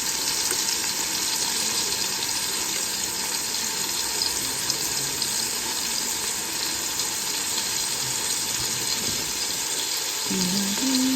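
Chuck roast searing in bacon grease in a Ninja Speedi pot on the sear/sauté setting: a steady sizzle.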